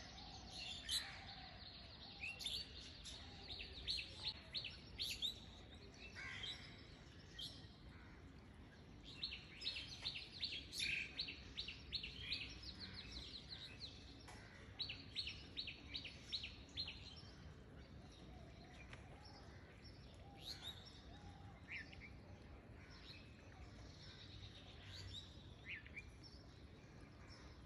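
Small birds chirping and twittering in quick bursts, faint against a quiet background. Under them are soft taps and squelches from a metal masher pressing boiled pumpkin in a pan.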